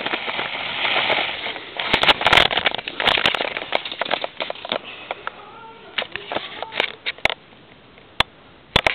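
Handling noise from a handheld camera being moved about: rustling, then a quick irregular run of clicks and knocks.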